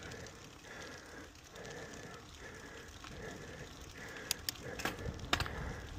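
Bicycle rolling on a coarse chip-seal road: the tyres crackle over the stones and wind rumbles on the microphone. A soft sound repeats about every half second, and a few sharp clicks come near the end.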